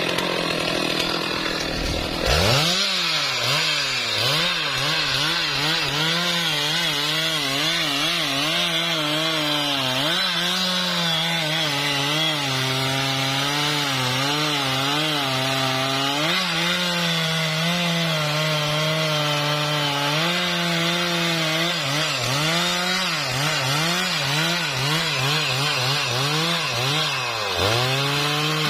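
Stihl MS 660 two-stroke chainsaw under full throttle, cutting through a felled trembesi log. About two seconds in the chain bites and the engine note drops. Under load the pitch then wavers, bogging and recovering, and near the end it dips and climbs again.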